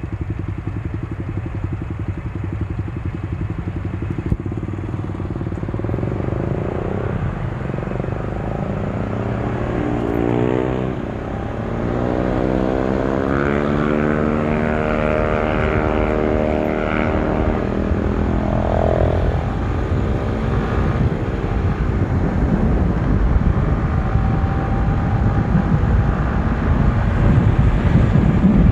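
Honda CBR150R's single-cylinder engine accelerating, its pitch climbing and dropping back three times as it shifts up through the gears, over steady wind noise on the microphone that grows louder near the end.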